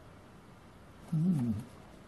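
A man's short wordless 'hmm', rising then falling in pitch, lasting about half a second a little over a second in.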